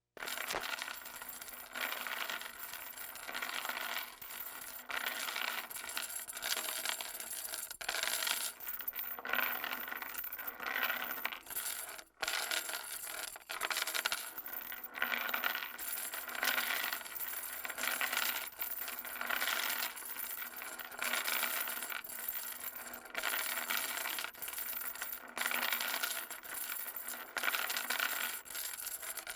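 Metal chain dragged over concrete: a continuous clinking, scraping rattle that swells and falls in waves about every second or so. There is a brief break about twelve seconds in.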